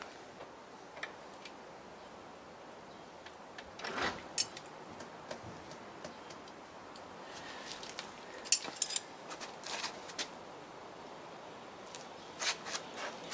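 Scattered metallic clicks and clinks of hand tools and wheel parts being handled while a motorcycle wheel is refitted, with a small cluster about four seconds in and busier bursts near the middle and end.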